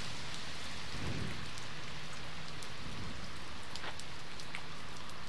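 Heavy rain falling on a wet asphalt road: an even, steady hiss with scattered sharp ticks of single drops.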